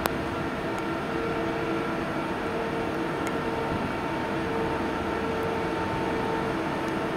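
EP2K DC electric locomotive humming steadily with several held tones that fade in and out, with a sharp click right at the start.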